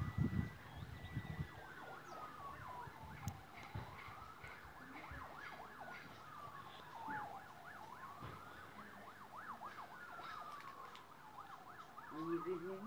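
Faint emergency-vehicle siren wailing, its pitch rising and falling slowly every few seconds, with a faster yelping sweep around the middle.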